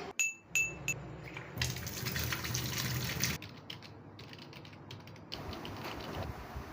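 A string of homemade sound effects. A spoon taps a glass twice, each tap ringing briefly. Then comes running tap water, then a run of keyboard clicks, then a steady hiss.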